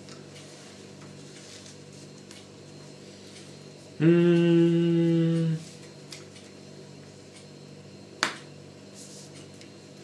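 A person hums a steady held note for about a second and a half, without words. Near the end comes a single sharp tap as a card is set down on the playmat.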